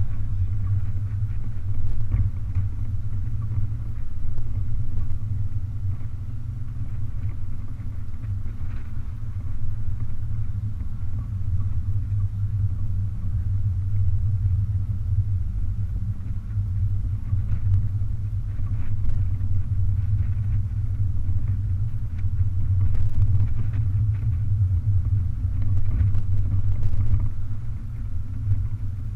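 Steady low rumble of a BMW 420 convertible driving with its top down: engine and road noise mixed with wind across the open cabin, the level rising and falling a little.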